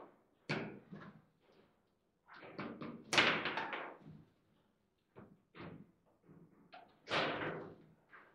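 Table football play: the ball knocked about by the players' rod figures and banging off the table, with the rods clacking, in a series of sharp knocks. The two loudest hits come about three seconds in and about seven seconds in.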